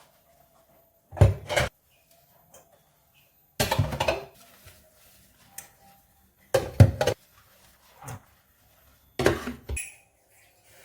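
Dishes and cutlery being handled, clattering in four short bursts a few seconds apart.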